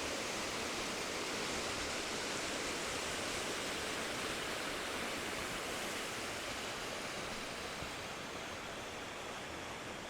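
Waterfall: a steady, even rush of falling water that eases slightly in the second half.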